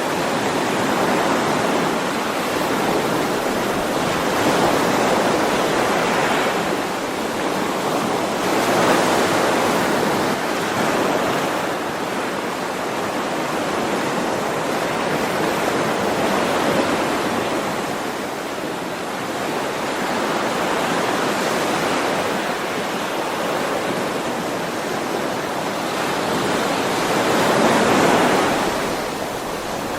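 Ocean waves washing onto a shore, a steady rush of surf that swells and recedes every few seconds.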